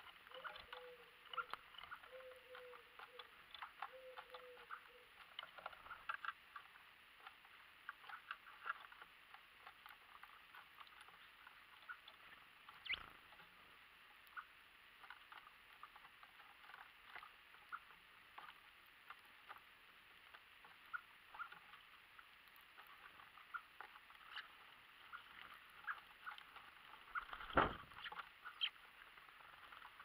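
Small birds pecking at seed on a wooden feeder tray: a steady patter of quiet ticks and clicks, with louder single knocks about 13 seconds in and near the end. A low call repeats about four times in the first few seconds.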